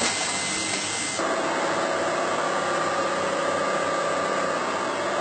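Steady shoe-factory machinery noise: an even hiss that changes abruptly about a second in to a steady machine hum with a faint whine.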